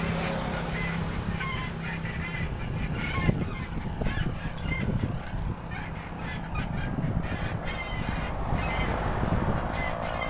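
Short high squeaks repeating at irregular intervals from a rusty bicycle being ridden, over a constant low rumble of wind on the microphone.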